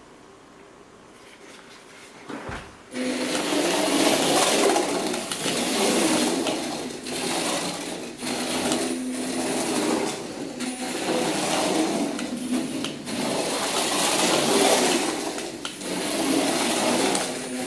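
Small electric drive motor and gears of a toy RC car chassis whirring, starting about three seconds in and swelling and dipping every second or two as the throttle is worked.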